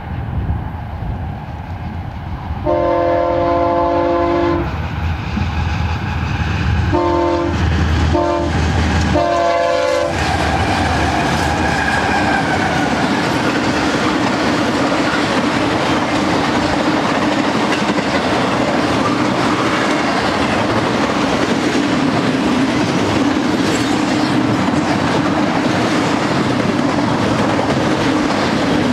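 Locomotive air horn sounding a chord in the long, long, short, long pattern of the grade-crossing signal as a BNSF train approaches. Then the lead GE ES44C4 diesel locomotives pass with a falling tone, followed by the steady rumble and clickety-clack of intermodal well cars rolling by.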